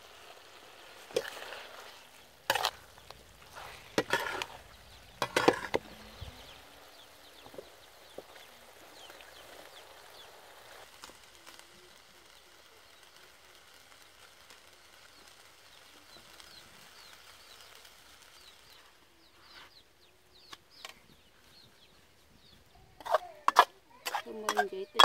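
Metal spatula scraping and knocking against a steel wok while an eel stir-fry sizzles steadily in it. The sizzle fades about two-thirds of the way through, and a quick run of loud scraping strokes comes near the end.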